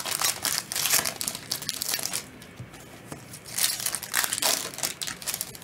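Trading-card pack wrappers crinkling and tearing as packs are opened by hand, in bursts with a short lull about halfway through.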